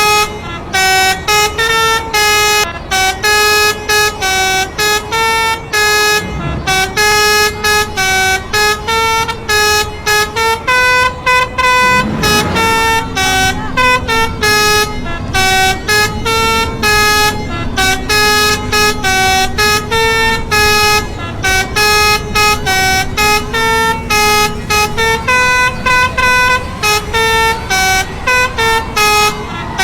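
Basuri telolet horn, a multi-trumpet musical air horn of the kind fitted to Indonesian buses, playing a fast tune of short stepped notes that repeats over and over.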